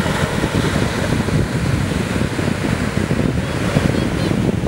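Wind buffeting the microphone in a loud, fluttering low rumble over the steady wash of ocean surf.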